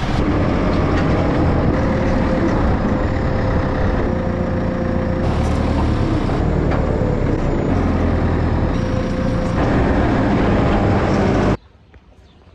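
Diesel engine of a farm yard loader running under way, loud and steady, with a faint steady whine over it. It cuts off suddenly near the end.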